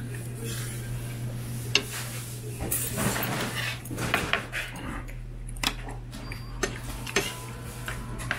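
Metal spoon and tableware clinking against ceramic dishes: several separate sharp clinks, over a steady low hum.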